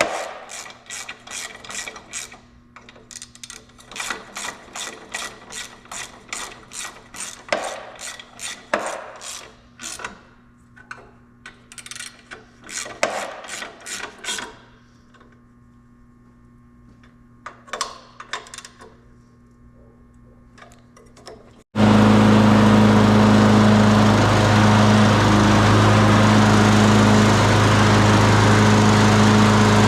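Socket ratchet clicking in quick runs as bolts are tightened on a Tecumseh mower engine. About 22 seconds in, it cuts abruptly to the Tecumseh lawn mower engine running loud and steady on its replacement carburetor.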